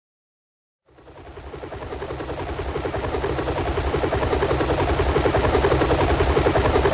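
Helicopter sound effect: a fast, even rotor chop that starts about a second in and grows steadily louder.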